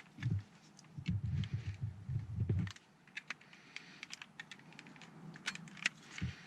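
Small plastic clicks and taps as a knife pries the cover of a car window switch panel off its clip tabs, with low handling rumbles through the first three seconds.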